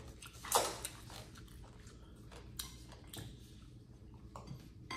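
Eating sounds: chewing and small mouth and food-handling noises. A short, louder noise comes about half a second in, followed by a few faint clicks.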